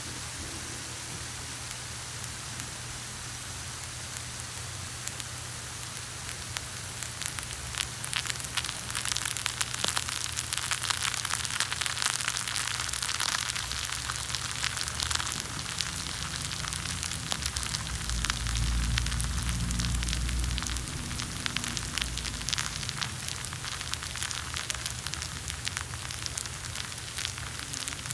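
Hot water on ground coffee during brewing: a steady hiss with dense fine fizzing and crackling from the grounds, thickening several seconds in, with a brief low rumble later.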